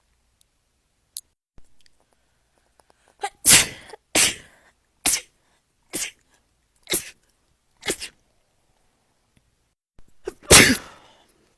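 A person sneezing again and again in an allergy attack: seven sneezes, the first about three seconds in and then roughly one a second, followed by a pause and a last, loudest sneeze near the end.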